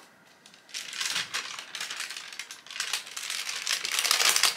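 Sheet of ironing paper crinkling as it is handled and peeled off fused beads on a plastic pegboard. It starts under a second in with a dense crackle that grows louder near the end.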